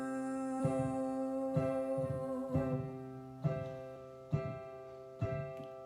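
Music: a gentle chordal accompaniment, a chord struck about once a second, under a held sung note that fades out about two and a half seconds in.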